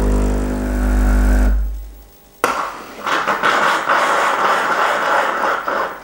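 Breville Bambino Plus espresso machine's vibratory pump humming for about a second and a half as it pushes water against a blind disc in a backflush, then stopping. About a second later there is a sudden, continuing hiss: pressurised water and cleaning solution being released through the solenoid valve into the drip tray.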